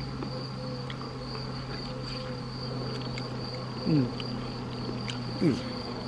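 Flies buzzing around the microphone, twice passing close with a loud buzz that drops in pitch. Under them runs a steady high-pitched insect chorus.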